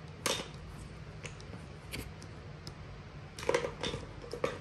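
Light clicks and taps of small objects being handled: a few single clicks spread out, then a quicker cluster about three and a half seconds in, over a faint steady hum.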